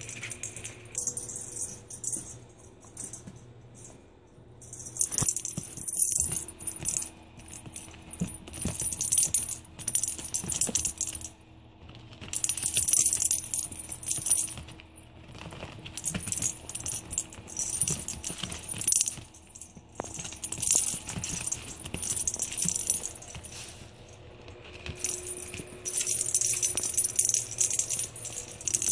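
Small jingle bells shaking in irregular bursts as kittens play and bat at their toy, some shakes lasting a couple of seconds, with short pauses between.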